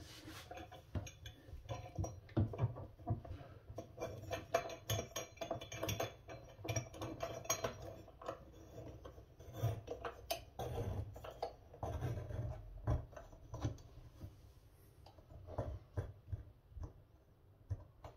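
A metal sink drain strainer being pressed and turned by hand in its drain hole, giving irregular small scrapes, clicks and knocks.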